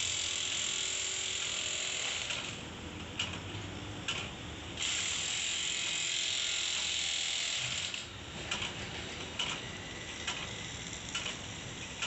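Ratchet wrench clicking in quick runs as bolts are tightened to join two sections of a steel rebar cage for a bored pile, with scattered separate clicks between the runs.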